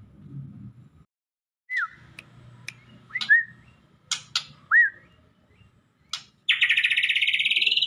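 Songbird calling: sharp chips and a few short down-slurred whistles, then about two-thirds of the way in a loud, rapid trill that rises in pitch.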